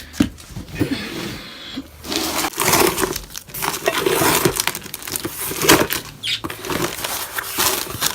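Plastic packaging crinkling and rustling as it is handled and dug through, in dense irregular crackles that pick up about two seconds in.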